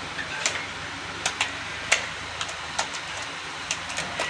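Steady low hum of a bucket milking machine running, with irregular sharp clicks and ticks over it.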